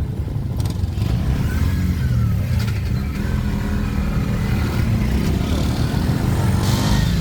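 Motor vehicle engine and road noise: a steady low rumble while driving.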